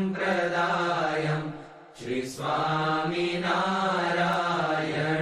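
Sanskrit devotional stotra chanted in a slow melodic line over a steady held drone, with a short pause for breath about two seconds in before the chanting resumes.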